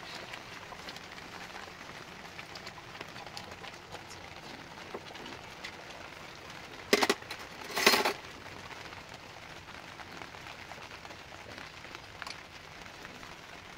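Steady crackle and hiss of a wood cooking fire under a boiling pot, scattered with small ticks. Two brief, much louder sounds break in about seven and eight seconds in.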